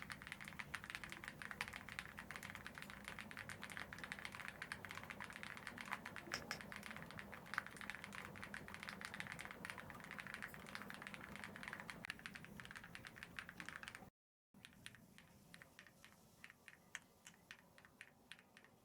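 Typing on a KiiBOOM Phantom 98 mechanical keyboard: a fast, dense run of keystrokes. After a brief cut about fourteen seconds in, slower and quieter keystrokes follow.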